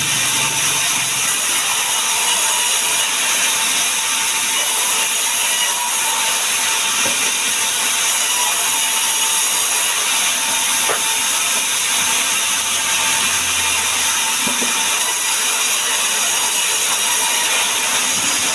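Power woodworking machine running steadily as it works sengon wood, a loud, even high-pitched noise with a faint steady tone under it.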